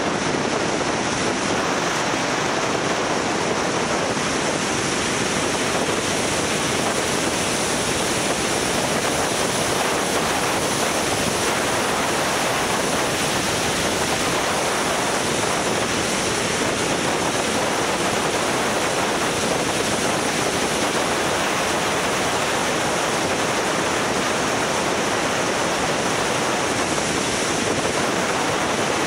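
Steady rush of wind buffeting the microphone of a camera on a moving motorcycle, an even roar with no change in level.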